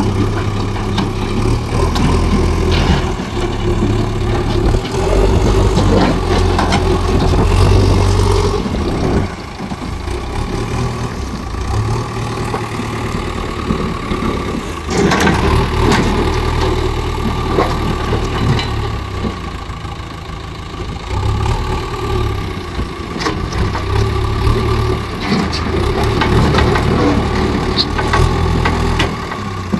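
JCB loader's diesel engine working under varying load, its low note rising and dropping every few seconds, with scattered clanks and a sharp knock about fifteen seconds in.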